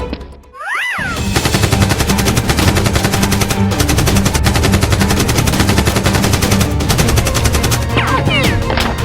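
Rapid automatic gunfire, a dense run of shots starting about a second in, over background music.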